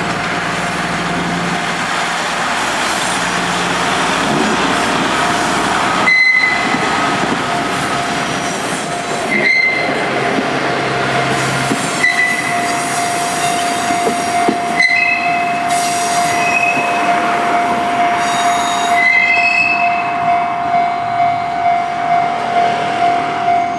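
Two-car KiHa 48 and KiHa 40 diesel railcar set running through a level crossing, with short wheel squeals now and then. A level crossing alarm rings steadily throughout and stands out as a regular ding-ding near the end as the train noise fades.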